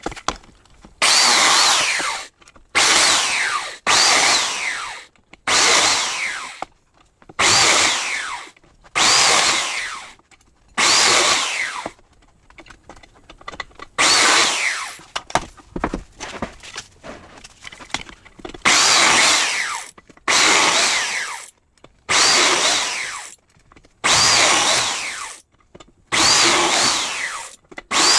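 Belt-driven biscuit jointer (plate joiner) cutting biscuit slots in wood. It comes in short bursts every second or so, with a pause near the middle. Each burst starts loud and dies away with a falling whine as the motor slows.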